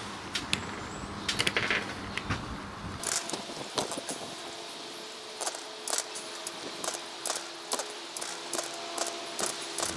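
A 6cc hit-and-miss model petrol engine being spun over by hand at its flywheel and not yet firing: irregular light metallic clicks and clacks from its moving parts, a couple a second.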